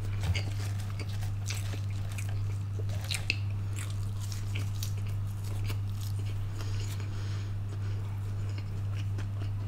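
A person biting and chewing fried popcorn chicken, with irregular small crunches and mouth clicks over a steady low hum.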